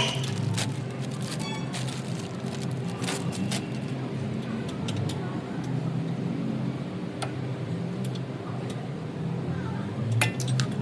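A car running with a steady low drone, with irregular clicks and knocks now and then: the knocking of a worn stabilizer link.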